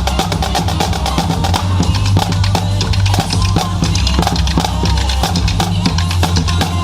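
Music driven by a drum kit, with a quick, steady beat of drum hits over a continuous bass line.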